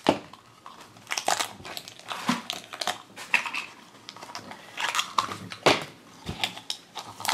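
Irregular crinkling and crackling of plastic packaging as a small plastic blind-bag jar is handled and its peel-off lid seal is pulled open by hand.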